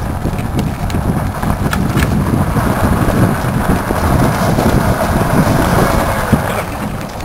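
Steady rumble of a small dog-drawn cart's wheels rolling on a paved path, with wind buffeting the microphone.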